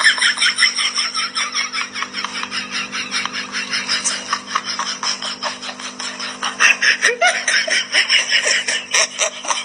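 A person laughing in rapid, repeated bursts, about four or five a second, louder near the end, over a steady low hum.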